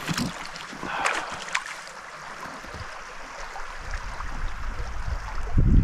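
Small mountain stream running over a low, shallow riffle, a steady rushing with a few sharp splashy ticks about a second in. A low rumble on the microphone builds after about four seconds and is loudest near the end.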